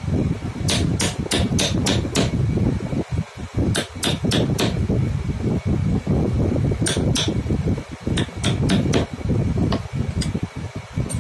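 Wooden mallet striking a thin steel chisel to carve out recesses in a jigsaw-cut wooden piece. The blows are sharp, light and come in quick runs of a few strikes with short pauses between. A steady low rumble runs underneath.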